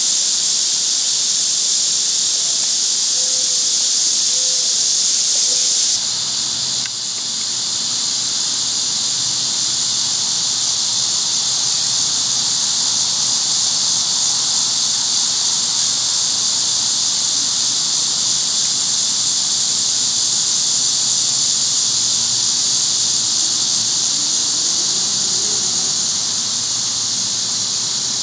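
Steady, loud, high-pitched insect chorus, an unbroken hiss with no pauses.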